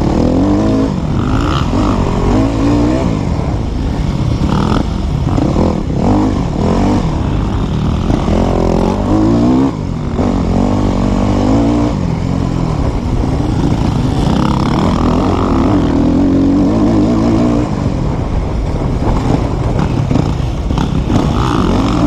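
Yamaha dirt bike engine heard up close, revving up and falling back again and again as the rider works the throttle through the gears, with a brief drop about ten seconds in.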